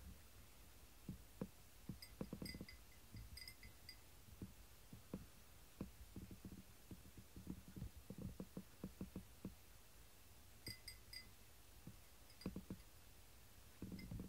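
A cat eating from a ceramic bowl, with faint, irregular chewing and crunching clicks. Two short clusters of light, high tinkling come through as it eats.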